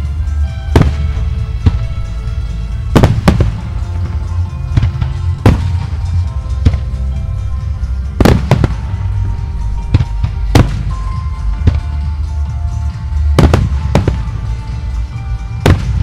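Aerial firework shells of a music starmine bursting: about a dozen sharp bangs, some in quick pairs, over music and a steady low rumble.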